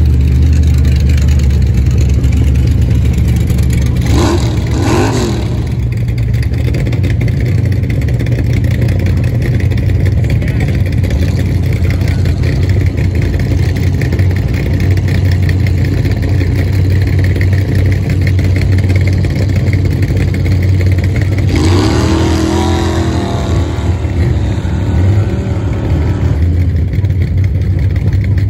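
Motor-vehicle engine running loud and steady at the foot of a steep dirt hill-climb course, with short stretches of voices about four seconds in and again near the end.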